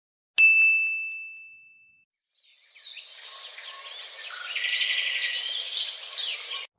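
A single bright bell ding that rings out and dies away over about a second and a half. Then birds chirping fade in and cut off suddenly near the end.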